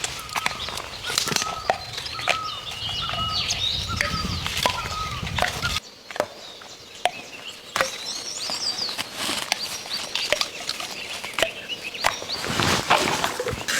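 Fresh Japanese knotweed shoots being snapped off by hand: a string of sharp cracks among rustling leaves, with birds chirping.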